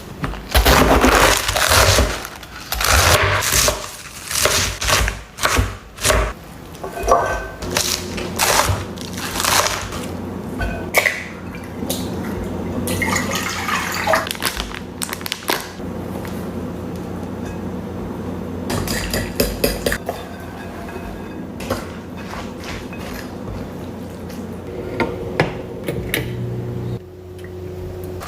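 Kitchen clatter: a run of sharp knocks and clinks over the first ten seconds or so, then scattered clicks over a steady hum.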